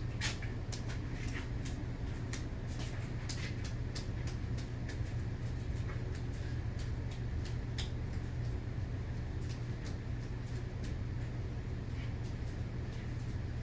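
A 52-inch Emerson Premium ceiling fan spinning down, with a steady low hum and irregular light clicks that come less often as it slows.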